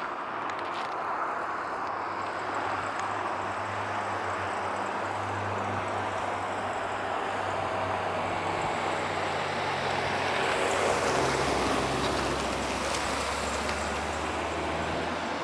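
A vehicle running, a steady rumble with a low engine hum that shifts in pitch and grows loudest about ten to eleven seconds in.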